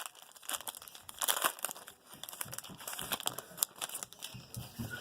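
Plastic wrapper of a trading-card pack crinkling and tearing as it is ripped open, in irregular crackly bursts with a louder burst a little over a second in.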